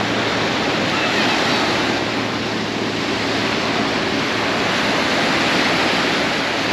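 Steady rushing of water and wind, an even noise with no distinct events.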